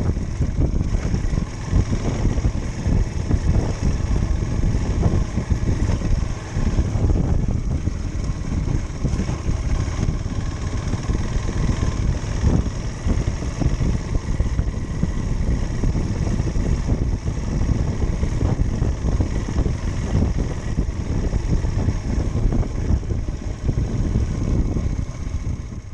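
A motor running steadily with a dense low rumble, which cuts off suddenly near the end.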